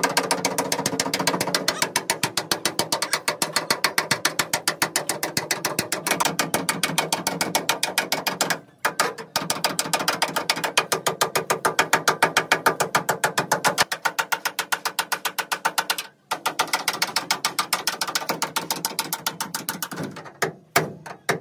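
Fast, even mechanical clicking, about eight clicks a second, in three long runs broken by two brief pauses.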